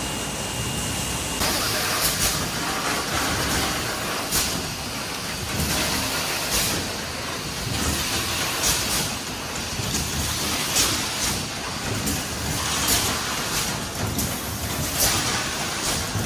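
Bottling-plant machinery running steadily, with a short sharp hiss of compressed air about every two seconds from a PET bottle blow-moulding machine.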